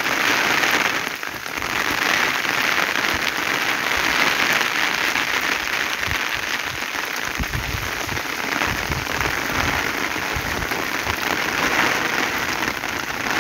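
Heavy tropical rain falling steadily on vegetation and wet ground, a downpour. A low rumble comes and goes in the middle.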